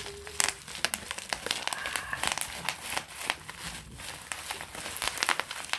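Bubble wrap being handled and squeezed: a dense, irregular run of plastic crinkling with sharp cracks and pops.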